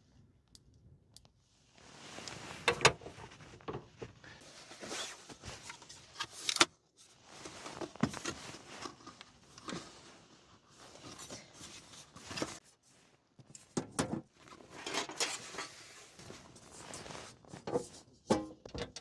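Objects being handled: rustling with sharp clicks and knocks coming in irregular bursts, with short pauses between them.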